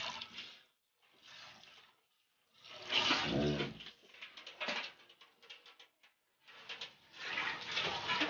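Milk squirting in quick streams from a cow's teats into a steel pail during hand milking, a hissing patter in bursts with short gaps. A short low animal call sounds about three seconds in.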